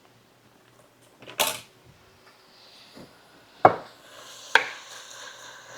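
Kitchen handling sounds: a short scrape about a second and a half in, then two sharp clicks of utensils or containers knocking against a hard surface.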